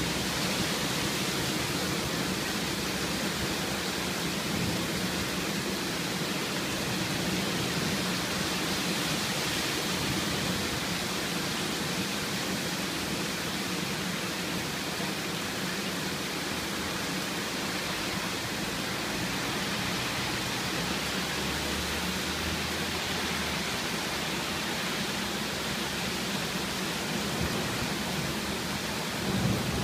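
Storm rain falling steadily, an even hiss with no letup.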